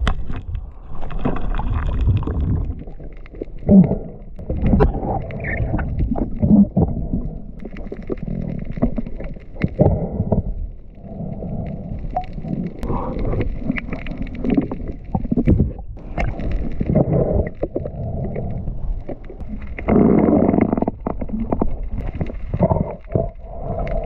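Muffled water noise heard through an underwater camera while swimming: irregular surges of sloshing and gurgling, a second or two each.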